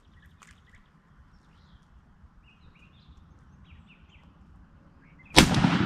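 Faint songbird chirps over a quiet outdoor background, then a sudden loud bang or thump near the end, trailing off into a rush of noise.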